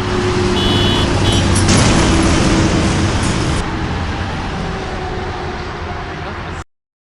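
Car sound effect: an engine running steadily with road noise. There is a louder rush of noise about two seconds in, and the sound cuts off abruptly near the end.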